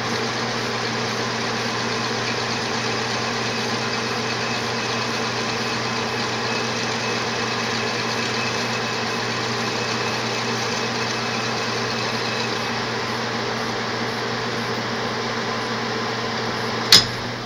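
Small metal lathe running steadily, with a steady hum and several even tones, while a cutting tool works a spinning brass bar in the chuck. There is a single sharp click about a second before the end, after which the running sound drops a little.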